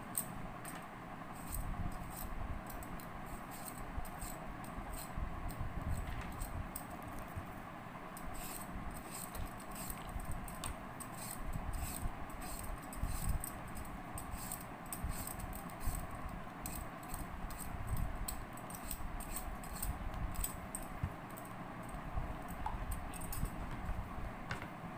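Irregular light clinking and rattling, over a steady low hum.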